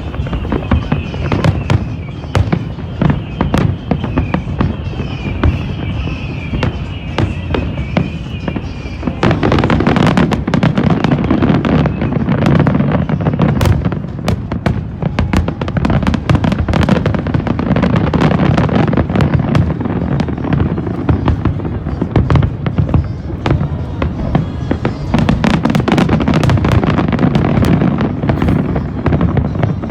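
Fireworks display: a continuous barrage of shell bursts and crackles, with a wavering high whistle over the first part, growing denser and louder about nine seconds in.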